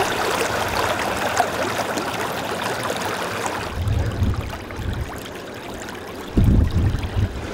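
Seawater floodwater welling up through a street drain and bubbling and splashing across the road in a steady rush, quieter after about three and a half seconds. A few low rumbling thumps come near the end.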